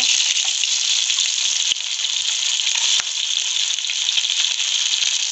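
Steamed chicken pieces shallow-frying in hot oil in a frying pan: a steady, dense sizzle with a couple of brief clicks.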